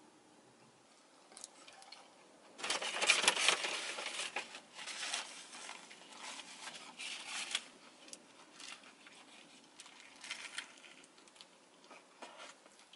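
Close-miked eating sounds: a loud crunchy bite into a burger wrapped in iceberg lettuce about two and a half seconds in, then crisp chewing and paper rustling that thin out to scattered faint clicks.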